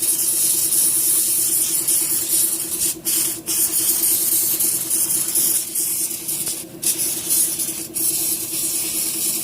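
Electric fuel pump running with a steady humming whine while fuel sprays out of its outlet with a loud hiss. The spray cuts out briefly a few times, about three seconds in and again near seven and eight seconds. The pump is being flow-tested after dirt was cleaned from its intake strainer.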